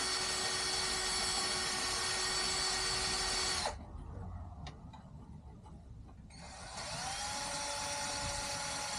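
Electric drill running steadily as it bores a hole in a wooden chair part. About four seconds in it stops and winds down, and a little before seven seconds it spins up again with a rising whine and keeps running.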